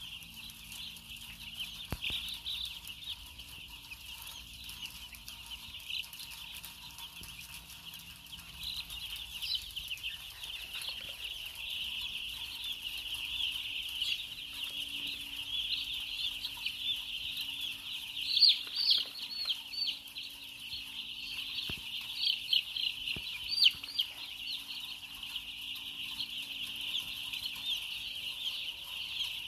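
A large flock of young chicks peeping all together, hundreds of short high chirps overlapping into a steady chorus, with a few louder peeps close by about two-thirds of the way through.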